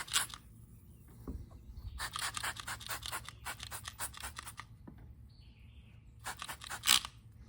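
Three bursts of rapid scratchy strokes on a riding mower tire, the longest about two and a half seconds, as soapy water is worked over the tire to check it for a second leak.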